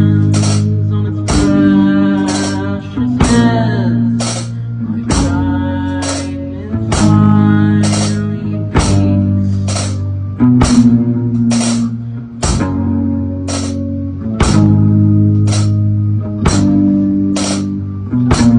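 A small band playing an instrumental passage: guitar lines over held bass guitar notes, with a drum kit keeping a steady beat of sharp hits about once a second.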